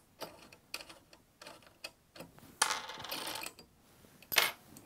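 Small metal bolt hardware handled by fingers: scattered light clicks and clinks of a bolt, flat washer and split-ring washer, with a short scraping rub about two and a half seconds in and a sharper click near the end.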